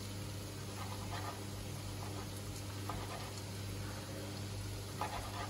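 A few soft crunching cuts of a small knife through a raw carrot on a plastic cutting board, spaced a second or two apart, the last near the end the loudest, over a steady low hum.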